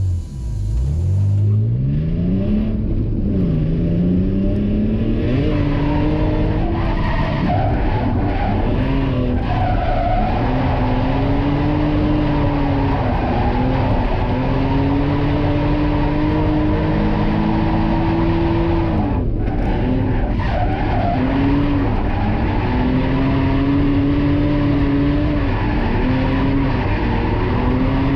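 BMW E46 328Ci's straight-six engine revving hard through drift runs, its pitch climbing about a second in and then held high with repeated dips and rises, while the rear tyres skid and squeal.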